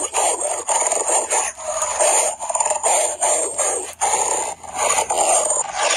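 Animal fight sound: continuous growling and snarling, with many short breaks.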